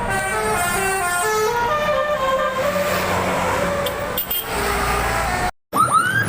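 Telolet bus horn: a multi-tone musical air horn playing a quick run of short stepped notes over vehicle noise, stopping about three and a half seconds in. Near the end the sound cuts out for a moment and comes back with a short rising tone.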